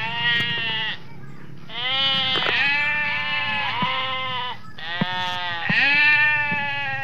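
Goat kid bleating over and over: long, wavering bleats one after another with short gaps between them, over a low steady hum.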